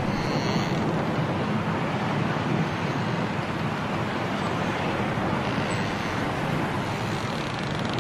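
Strong wind blowing steadily through bare trees in a snowstorm, an even noise with no gaps.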